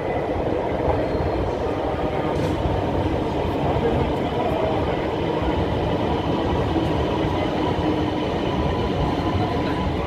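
Electric metro train of Lahore's Orange Line pulling in along the platform: a steady rolling noise of wheels on rail, with a faint high whine above it.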